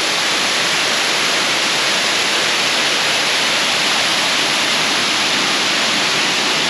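Rushing water of a small river rapid close by: a steady, loud, even rush with no change in level.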